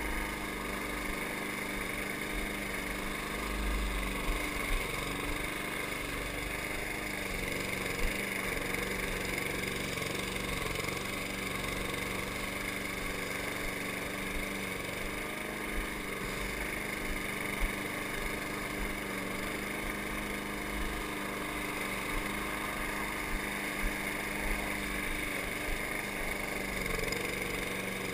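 Walk-behind gas lawn mower's small engine running steadily under load while cutting grass, with a few brief sharp ticks over the drone.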